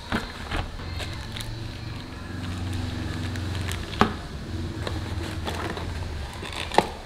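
Cardboard parts boxes and a plastic blister pack being handled and opened on a table: scattered clicks, taps and rustles, the sharpest about four seconds in, over a low background rumble.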